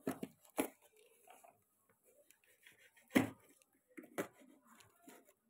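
A cardboard box being cut open with a knife and handled: a few short knocks and scrapes with quiet in between, the loudest about three seconds in.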